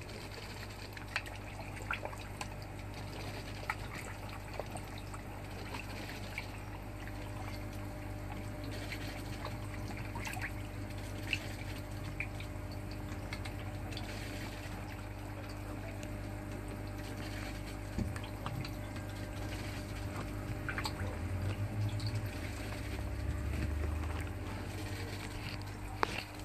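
Water running and trickling into an aquaponics fish tank from a return hose, over a steady low hum, with scattered small drips and ticks.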